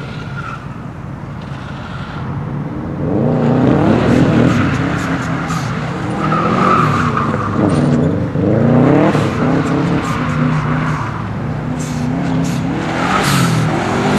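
Subaru Impreza's engine revving up and down again and again as it is driven hard, getting louder about three seconds in, with brief spells of tyre squeal.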